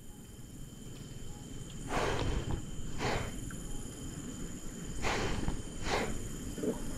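Four brief rustling swishes in two pairs, over a steady high, thin insect drone and low outdoor rumble.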